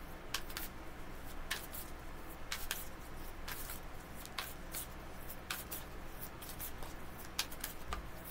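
Tarot cards being handled and laid out: about a dozen light, irregular snaps and taps of card stock.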